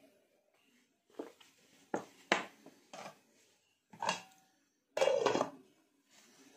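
Light knocks and clinks of glassware and kitchenware handled on a counter, then a louder cluster of knocks about five seconds in as the glass lid is set onto an electric cooking pot.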